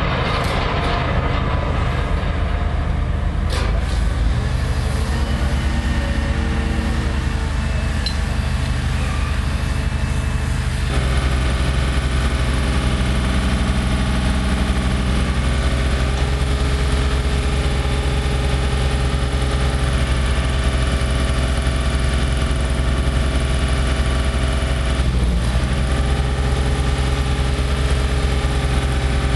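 Diesel engines of heavy lifting plant running steadily with a constant hum, with a few metallic clanks in the first few seconds.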